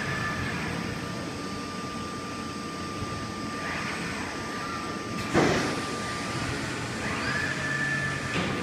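Industrial palletizing robot arm moving interior doors: its servo drives whine in short rising glides as the arm swings, over a steady machine hum with a constant high tone. One sharp, loud knock about five seconds in.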